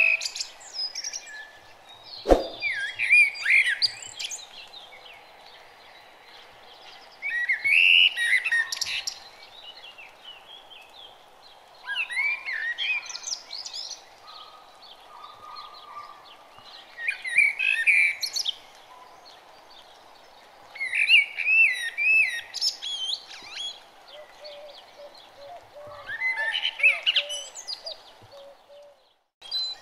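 Birds chirping in short bouts every few seconds over a faint steady background noise, with a single sharp click about two seconds in.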